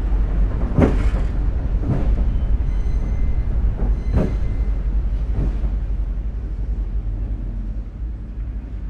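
Freight train running along the rails: a steady low rumble broken by a few sharp clacks of wheels over rail joints, slowly fading toward the end.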